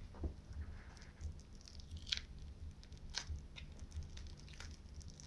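Adhesive tape being peeled off the fingers: faint sticky crackles and small ticks, with a few sharper snaps as it pulls away, over a low steady hum.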